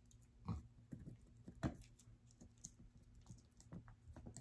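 Near silence with a low room hum and a few faint, scattered short clicks, the sharpest about a second and a half in.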